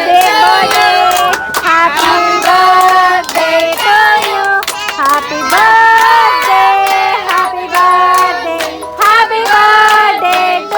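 A song: a voice singing held, wavering notes over music, with some hand claps.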